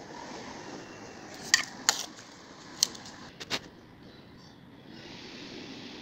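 Four short, light clicks and taps from tools and wood pieces being handled, starting about a second and a half in and spread over about two seconds, over a faint steady hiss.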